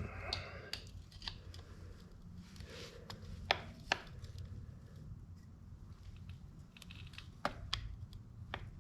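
Scattered sharp metal clicks and light scraping from a screwdriver levered with locking pliers against a motorcycle chain's master link, as its retaining clip is worked into place on a link made tight by its X-ring seals. The two loudest clicks come close together about halfway through.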